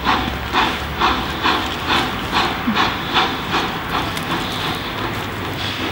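Finnish VR class Tk3 'Pikku-Jumbo' steam locomotive No. 1136 pulling away from a stand: sharp exhaust chuffs from the chimney, about two a second and gradually quickening as it accelerates, over a steady hiss of steam.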